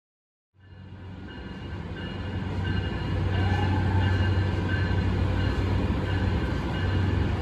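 Railpower RP20BD genset locomotives approaching at low speed, their diesel engines running with a steady low drone that fades in under a second in and grows louder as they draw near.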